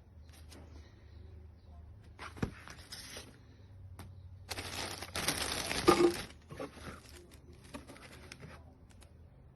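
Rustling, crinkling handling noise in several bursts, the longest and loudest about halfway through, with a sharp knock about two and a half seconds in.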